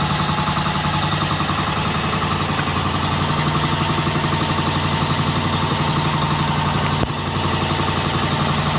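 Small fishing boat's engine running steadily with a fast, even beat.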